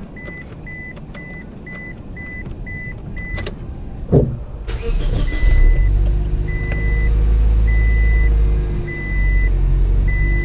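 Scion xB's warning chime beeping rapidly, then a click about four seconds in as the 1.5-litre four-cylinder engine is started. The engine then runs steadily while a slower chime beeps about once a second.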